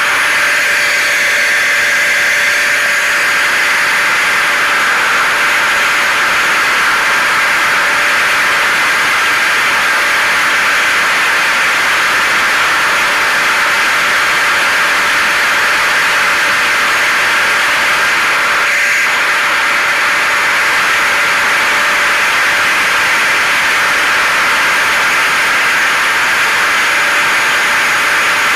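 Hair dryer, vacuum cleaner and car noise layered together into one steady, unbroken hiss with a faint steady hum underneath, played as white noise.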